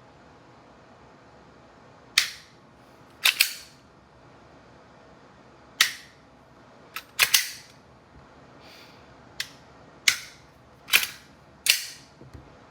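A Glock 45 airsoft pistol makes about eight sharp snaps at uneven intervals, two of them in quick succession near the middle, with a couple of fainter clicks between.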